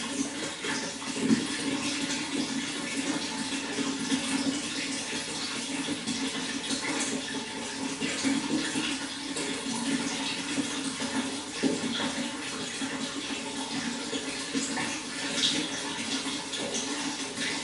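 Water flowing steadily: a continuous rushing, splashing noise with small irregular spatters.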